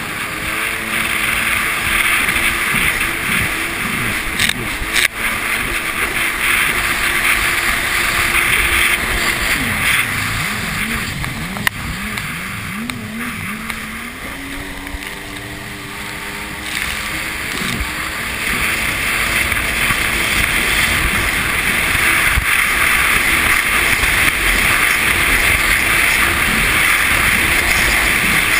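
Yamaha personal watercraft (jet ski) engine running under throttle, with heavy wind and water rush over the hull and the camera. About ten seconds in the engine note drops and wavers for a few seconds, then climbs back to a steady high run.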